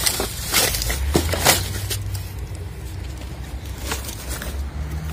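Plastic bags and scrap crinkling and rustling as a gloved hand rummages through them, with scattered clicks and knocks. From about a second in, a low steady rumble sits underneath.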